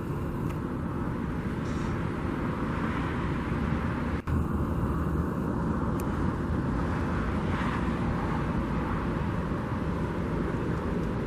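Steady outdoor rumble of street traffic, with no distinct events; the sound cuts out for an instant about four seconds in.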